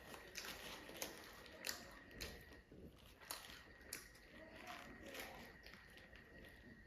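Quiet chewing and biting while eating fast food, a string of irregular soft crunches and clicks.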